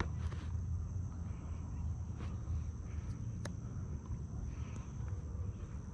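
Outdoor background: a steady low rumble under a faint, steady high-pitched insect drone, with two brief clicks, one about two seconds in and one about three and a half seconds in.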